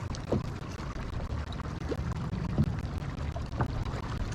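Water gurgling and splashing close by, a string of small irregular splashes and drips over a low steady rumble.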